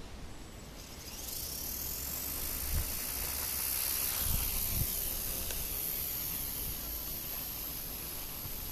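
Small brushless-motor RC helicopter spooling up: a high whine rises in pitch about a second in and then holds steady as the rotor runs. Low rumbling and a few thumps of strong wind on the microphone underneath.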